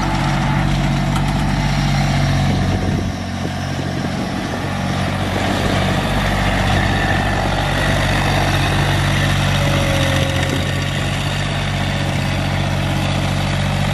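A motor vehicle engine idling steadily, a low even rumble, with noise in the higher range over it.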